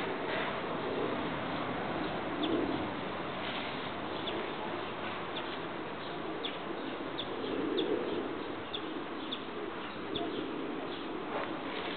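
Doves cooing in low, soft phrases every few seconds, with small birds chirping in short high notes over a steady background hiss.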